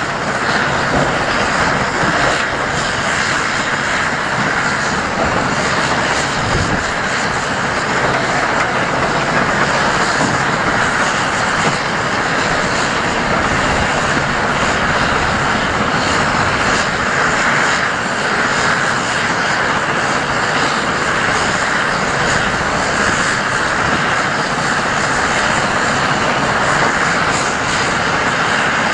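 Volvo A25D articulated dump truck driving on a gravel quarry haul road: a steady diesel engine drone mixed with tyre and gravel noise, holding an even level with no breaks.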